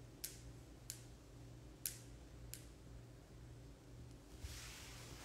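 Near silence: a faint low hum with four light, sharp clicks spread over the first two and a half seconds.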